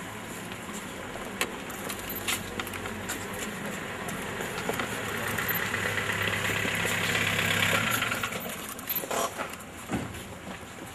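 An engine running steadily, growing louder over a few seconds and dropping back about eight seconds in, with scattered clicks.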